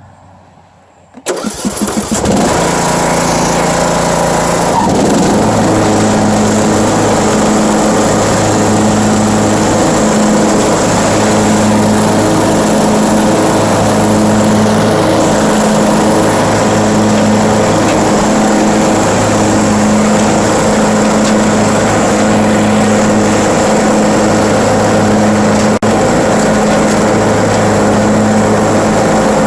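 Riding lawn mower's Briggs & Stratton 17.5 hp, 500 cc engine cranked by the key and catching at once, about a second in, then running steadily and loudly.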